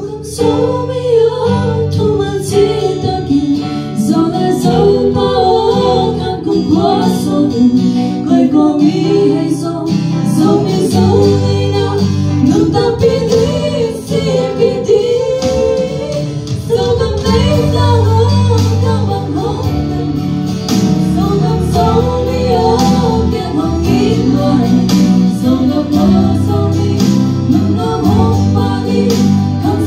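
Two women singing a duet into microphones over an instrumental accompaniment.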